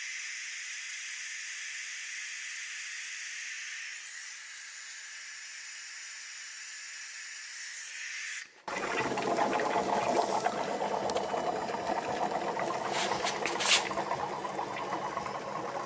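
OTC 8100 oil extractor hissing steadily as it sucks air through the dipstick tube, a sign that the oil has been drawn out. The hiss cuts off abruptly a little past halfway, followed by a louder, dense clatter of knocks and scraping with one sharp click near the end.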